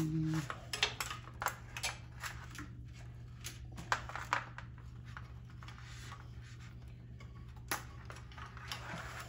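Scattered light clicks and rustles of hands working the wires and plastic connectors on a freeze dryer's run capacitor and wiring harness, over a steady low hum.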